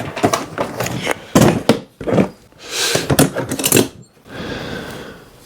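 Plumbing fittings being rummaged through and handled in a box or case: a string of clicks, clatters and knocks, with some rustling between them.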